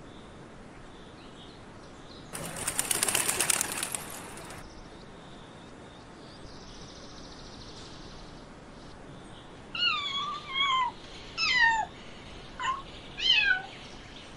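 Pigeons' wings clattering in a burst of about two seconds as the flock takes off. Later comes a run of five short mews from a cat, each falling in pitch.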